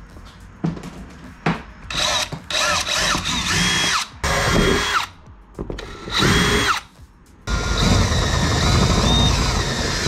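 DeWalt cordless drill boring a pilot hole into a plastic kayak hull. It runs in several short bursts, whining up in pitch at each start and winding down at each stop, then runs steadily through the last couple of seconds.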